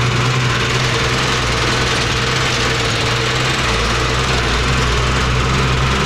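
A truck's diesel engine running steadily under way, heard from inside the cab: a steady low engine hum with a broad rushing road noise over it.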